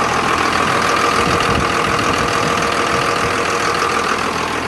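1996 Blue Bird bus diesel engine idling steadily with its hood up, warming up after a cold start.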